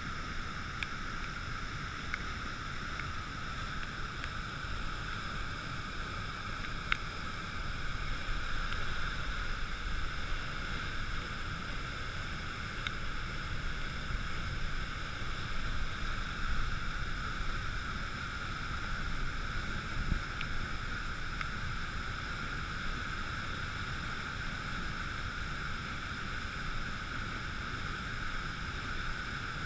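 Floodwater from a swollen, muddy river pouring over a concrete weir: a steady, unbroken rush of water.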